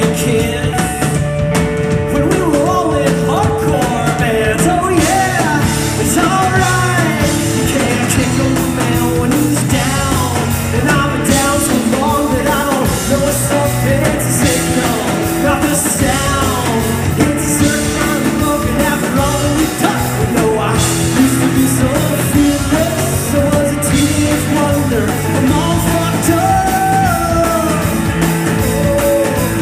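Live rock band playing: electric bass, drum kit and electric guitar, with the guitarist singing lead vocals.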